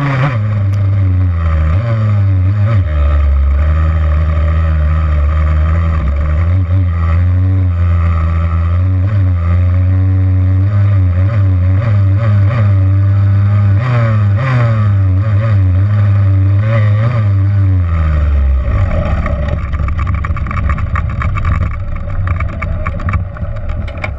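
Yamaha YZ85's two-stroke engine running on a dirt trail, its pitch rising and falling with throttle and gear changes. About 18 seconds in the steady engine note drops away, leaving a rough low rumble that fades near the end.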